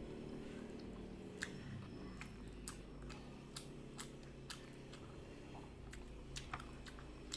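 Close-miked chewing of kikil, chewy beef skin in a chili sauce, with a string of sharp, irregular mouth clicks about once or twice a second over a steady low hum.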